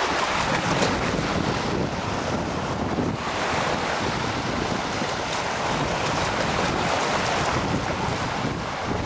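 Lake Michigan waves washing in, with wind rumbling on the microphone.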